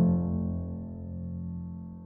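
Background music: a keyboard chord struck at the start, held and slowly fading away.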